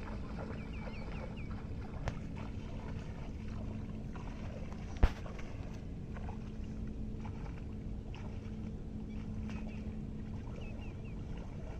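Low steady outdoor background noise with one sharp click about five seconds in. A bird repeats a quick run of four or five high chirps, once near the start and a few times near the end.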